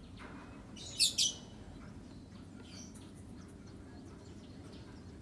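Hill myna giving two short, sharp, harsh calls in quick succession about a second in, the call it uses to answer or summon its companions.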